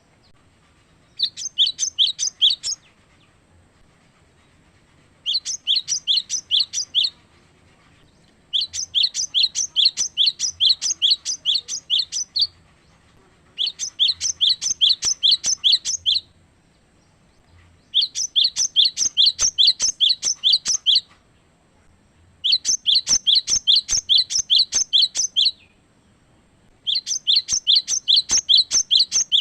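Cinereous tit (gelatik batu) singing: bouts of rapid, evenly repeated high notes at about four to five a second, each phrase lasting a second and a half to four seconds, separated by short pauses, about seven phrases in all. It is the loud, clear territorial song used as a pancingan to provoke other gelatik batu into singing.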